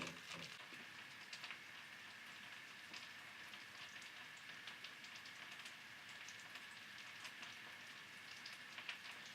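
Schupfnudeln (potato noodles) frying in butter in a pan: a faint, steady sizzle with small crackles and pops.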